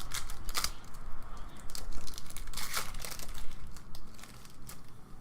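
Trading card packaging crinkling and rustling as it is handled, in irregular bursts, loudest about half a second in and again near the middle.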